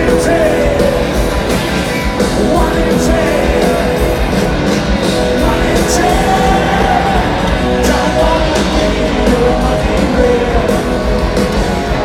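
Live rock band playing loud through a stadium PA: distorted electric guitars and drums with crashing cymbals, with a sung vocal line over them.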